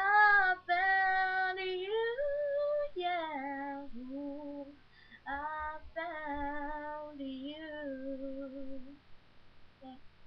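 A girl singing unaccompanied: the held, wavering notes of the song's closing phrases in three sung lines, the last fading out about nine seconds in.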